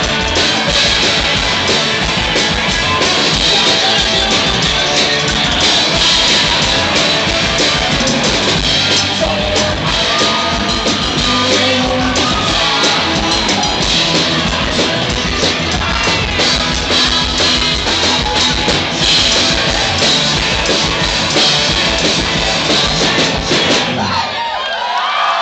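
Garage rock band playing live: loud drums, guitar and singing. About a second before the end the song stops and the crowd cheers and whoops.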